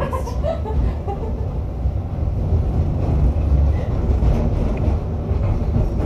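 Tram running along the street, heard from inside the car: a steady low rumble of the wheels and running gear on the rails.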